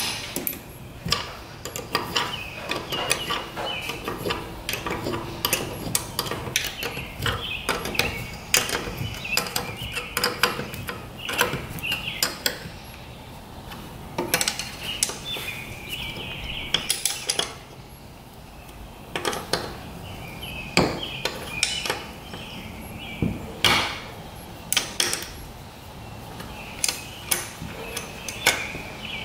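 Small combination wrench clinking and scraping on the bolts of an outboard lower unit's mounting flange as they are tightened: irregular runs of light metal clicks with short pauses.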